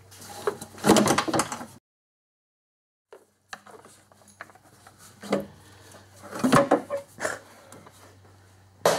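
Plastic air box and intake duct parts being worked loose and handled: hollow knocks, rattles and scrapes, broken by a stretch of dead silence about two seconds in.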